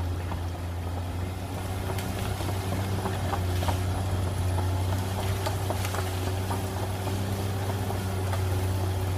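Caterpillar D6R XL bulldozer's diesel engine running at a steady pitch, with faint scattered clicks over it.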